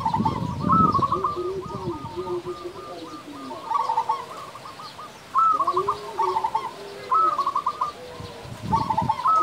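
Zebra doves (perkutut) singing: repeated phrases of quick, staccato cooing notes, about half a dozen phrases, some overlapping, with lower drawn-out coos between them. A low rumble comes with the first phrase and again near the end.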